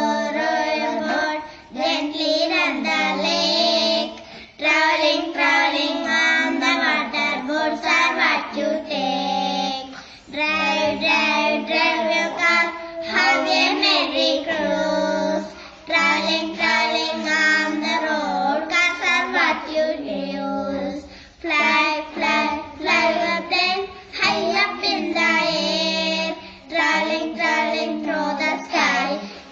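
Children singing an English nursery rhyme together in unison, with short breaks between lines.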